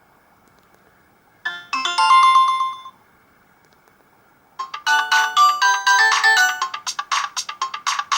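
Alcatel 2000X mobile phone ringtones playing on a Samsung GT-B2710 phone. A short electronic jingle of a few notes comes about a second and a half in. After a gap, a fast melody of clipped electronic notes starts about four and a half seconds in.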